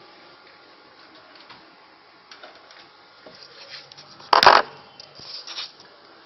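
Handling noises: scattered small clicks and rustles, with one loud, short clatter a little over four seconds in, followed by a brief rustle.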